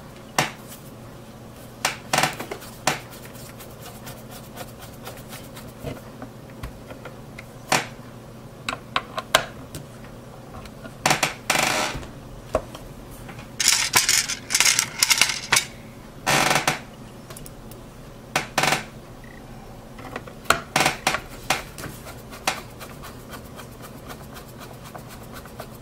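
Irregular small metal clicks and clinks, with a few short scraping rattles near the middle, as a Phillips screwdriver and small screws are worked into a graphics card's circuit board and heatsink.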